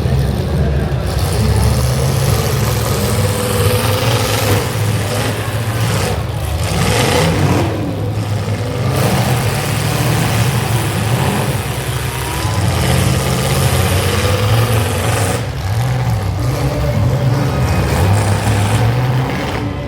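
Demolition derby car engines running and revving, a loud continuous low rumble that swells in stretches.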